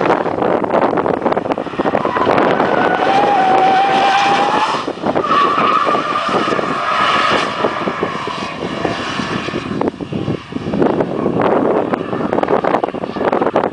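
Porsche 944 S2's 3.0-litre four-cylinder engine running hard as the car drifts. Its tyres squeal twice: the first squeal rises in pitch about two seconds in, and a second, higher squeal follows around the middle.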